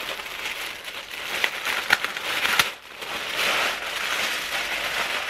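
A paper gift bag rustling and crinkling as it is handled and opened, with a few sharp crackles in the first half and a fuller, busier rustle near the end.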